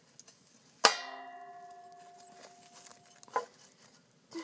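Metal clang: something metal is struck hard about a second in and rings on with a clear tone that fades over about two seconds, followed by a shorter knock and another clang near the end.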